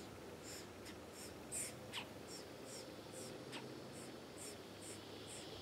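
Red-bellied woodpecker nestlings begging from inside the nest cavity: faint, high chirps repeated about two to three times a second, with a couple of brief falling notes.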